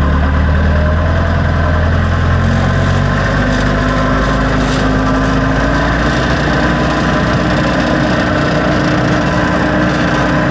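A backhoe's engine running steadily as the machine drives, its pitch rising a little a few seconds in.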